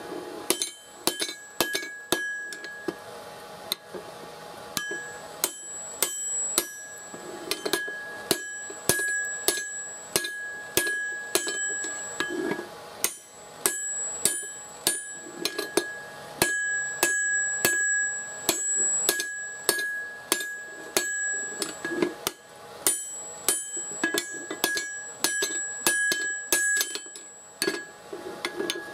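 Hand hammer striking a hot axe head, forged from car-axle steel, on a steel anvil while a drift is driven through its eye: a long run of sharp blows, a couple or so a second, with a bright metallic ring that carries on between blows.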